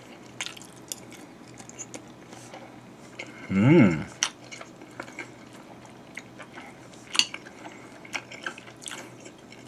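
Metal spoon clicking and scraping on a ceramic plate of fried rice, with chewing. A short hummed vocal sound comes about three and a half seconds in.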